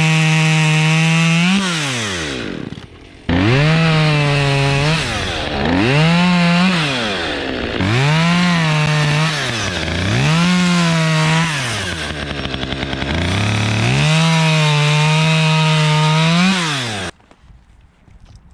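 Gas chainsaw running at high revs, dropping toward idle about 2 s in, then revved up and down over and over before a steady high-rev stretch. It cuts off suddenly near the end.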